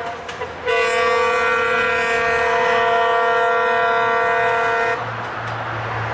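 Horn of a Czech-built T669 diesel locomotive: after a brief break, one long steady blast of about four seconds that stops about five seconds in, followed by a fainter rushing noise of the train running on.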